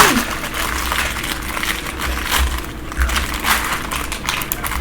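Snack packaging crinkling: irregular crackles of a plastic wrapper being handled, with a brief falling squeak right at the start.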